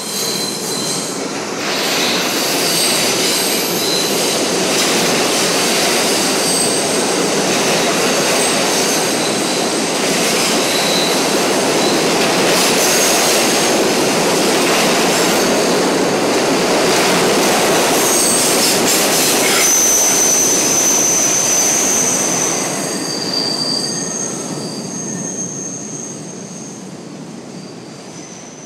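New York City subway train running past the station platform and away, its steel wheels rumbling and rattling on the rails. High-pitched wheel squeals run through it and ring out loudest over the last third, as the train's sound fades into the tunnel.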